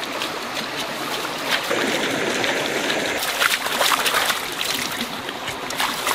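Shallow stream trickling over rocks, with a person's hands splashing in the water in short, repeated strokes from about halfway through.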